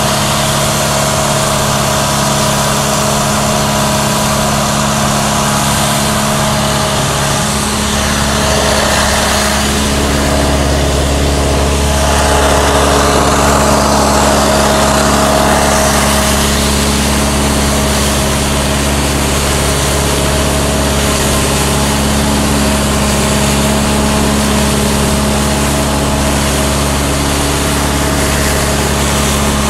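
Finn bark blower truck's engine and blower running steadily: a constant mechanical hum over a wide airy rush. The low drone grows stronger about eight seconds in and holds.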